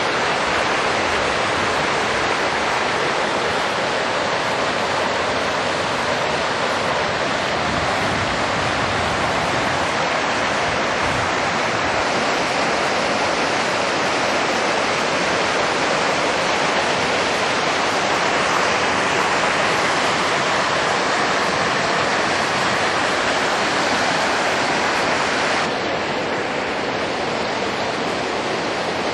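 Muddy flash-flood torrent rushing over a stony riverbed, a loud, steady rush of water. Near the end it turns slightly quieter and duller.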